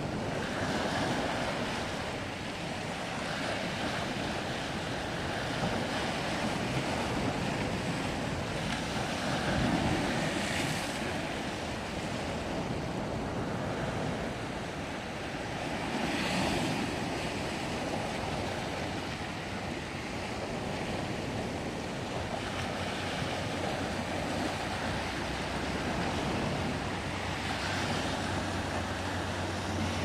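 Mediterranean surf washing over and breaking against a flat rocky shore ledge: a continuous rush of water that swells louder every several seconds as waves break.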